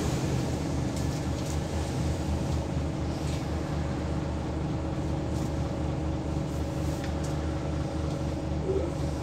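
Scania L94UB bus's nine-litre five-cylinder diesel engine running steadily while the bus is under way, with a few faint clicks and rattles over the engine sound.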